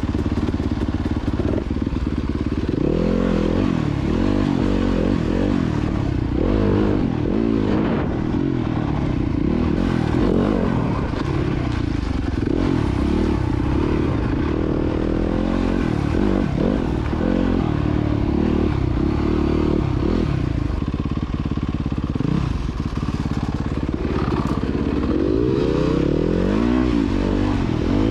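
Dirt bike engine running under constantly changing throttle while being ridden, its pitch rising and falling again and again.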